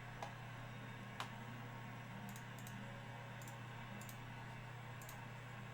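A few faint, sharp clicks and light ticks over a steady low electrical hum.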